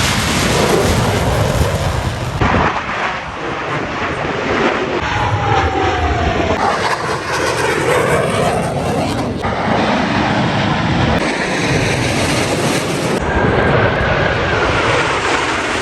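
Loud jet engine noise from Blue Angels demonstration jets flying past, in several short cut-together passes with abrupt changes every few seconds; about six seconds in, one pass falls in pitch as the jet goes by.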